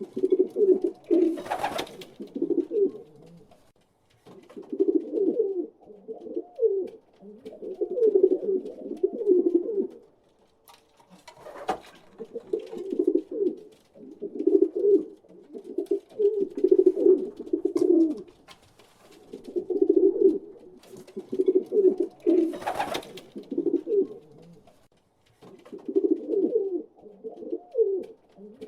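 Pigeons cooing in repeated low, warbling bouts that overlap and pause every few seconds, with three brief sharp noises standing out among them.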